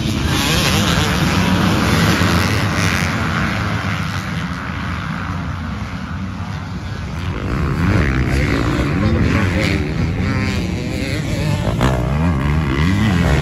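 Several dirt bike engines running hard as a pack of riders goes by on a dirt track, the revs rising and falling repeatedly in the second half.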